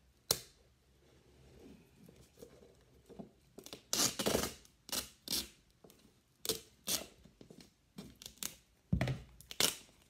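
Duct tape being pulled off the roll in short ripping pulls and pressed around a can, with the longest rip about four seconds in and several shorter ones after.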